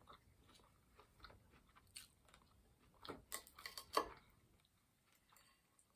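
A person chewing and biting food, with a short run of crunchy bites about three seconds in, the loudest just after four seconds.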